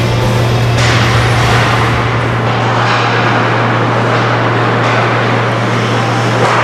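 Ice hockey rink during play: a steady low hum under a noisy hiss that swells a few times.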